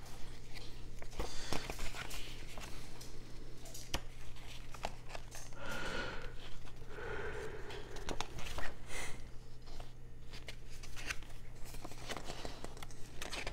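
Paper rustling and crinkling as a folded instruction booklet is handled and its pages turned, in many short irregular rustles and clicks over a steady low hum.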